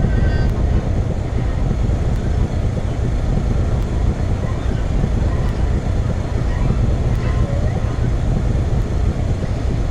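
Outdoor central air conditioner condenser units running, a steady drone of fan and compressor noise.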